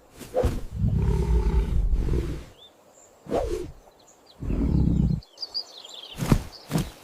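Recorded animal sounds: two long, deep rumbling calls from a large animal, with short high bird chirps between and after them, then a run of sharp clicks near the end.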